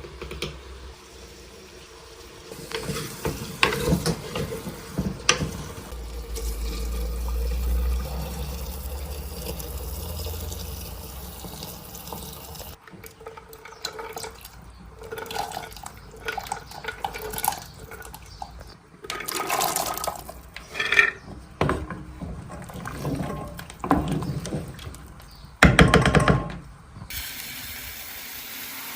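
Water being poured and sloshed during food preparation, mixed with knocks and clatter of handling. The sound changes abruptly at a few points.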